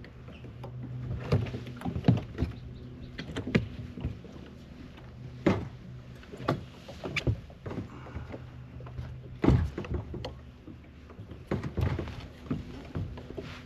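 Kayak being paddled: irregular splashes and knocks from the paddle strokes, one every second or two, over a steady low hum.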